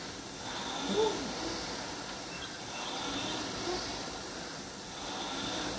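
Concept2 rowing machine's fan flywheel whooshing, swelling with each drive stroke and fading on the recovery about every two seconds as it is rowed at a steady pace.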